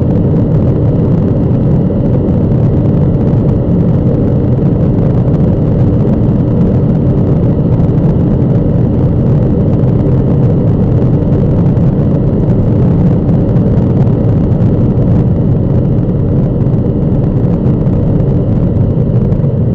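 Corvette Z06's V8 holding a steady drone at top speed, about 318 km/h, mixed with heavy wind and tyre noise heard inside the cabin.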